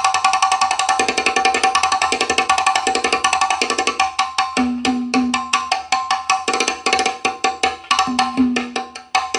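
Sound-system test music in its midrange section: a fast run of sharp wood-block-like percussion clicks over steady held tones, with short low notes joining about halfway through, played through a portable box with a 10-inch subwoofer.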